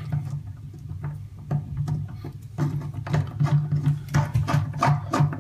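Chrome bathtub drain stopper cap being unscrewed by hand, making many small irregular clicks and scrapes that grow busier in the second half, over a steady low hum.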